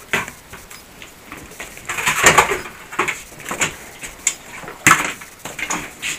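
Handling noise from a camera being moved and turned by hand: irregular rubs, scrapes and knocks. The loudest cluster comes about two seconds in, with a sharp knock near five seconds.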